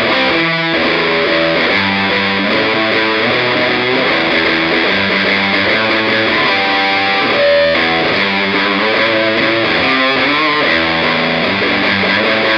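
Electric guitar (PRS DGT) played through a VS Audio Platinum drive pedal, voiced after the Marshall Silver Jubilee, into a Marshall Origin 20 amp, playing a distorted riff of quickly changing notes.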